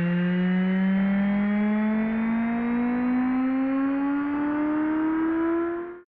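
Dubstep build-up: a single synth tone rising slowly and steadily in pitch, cutting off suddenly near the end.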